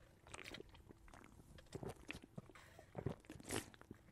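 Faint, irregular mouth sounds of someone sipping a fountain drink through a straw: soft clicks and short sucking noises, a little louder about three seconds in.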